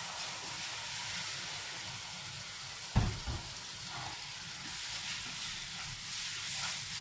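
Water poured into a hot frying pan of butter, brown flour, date syrup and ground walnut filling, spitting and sizzling steadily. There is a single knock about three seconds in, and a wooden spoon stirs the wet mixture near the end.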